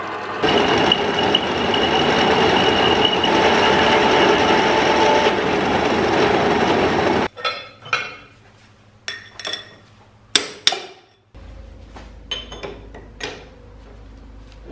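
A drill press runs, drilling a small steel plate for a leveling-foot end cap, with a steady whine over the cutting noise, then cuts off suddenly about halfway through. After it come scattered sharp metal clinks and knocks as the steel parts are handled at the vise, and a low hum comes in near the end.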